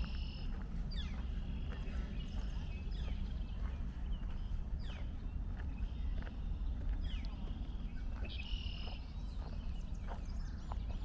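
Birds calling and singing in woodland: repeated buzzy calls and quick downward-sliding chirps. Along with them come a walker's footsteps on a dirt trail and a steady low rumble.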